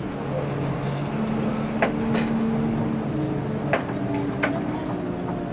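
Scania K360IB bus engine running at low speed, heard from inside the cabin as a steady low hum that drifts slightly in pitch, with a few sharp knocks scattered through it.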